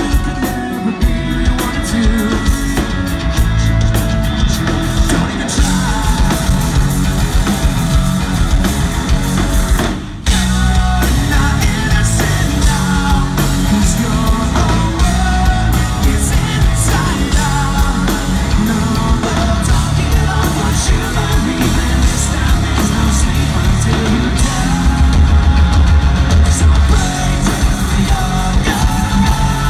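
Live rock band playing loudly: distorted electric guitar, electric bass, drum kit and sung vocals. There is a brief break in the sound about ten seconds in before the band comes straight back in.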